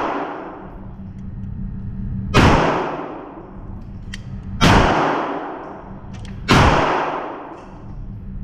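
Three gunshots about two seconds apart, each sharp crack trailing off in a roughly one-second echo, over a steady low hum.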